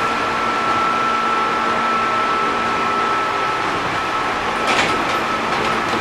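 Running sound of a JR East 205 series 600 subseries electric train heard from inside the car: a steady rumble of wheels and rails with a steady high tone above it, and a short cluster of clicks just under five seconds in.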